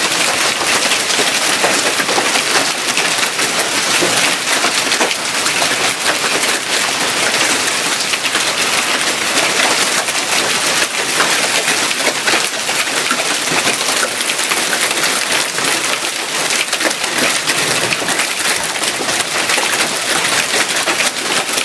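Hailstorm: hailstones pelting down in a dense, steady clatter of countless small hits.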